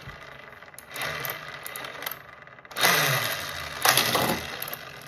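Hot Wheels Tune-Up Shop playset's motorized 3-speed car launcher whirring in several bursts, the loudest starting about three seconds in.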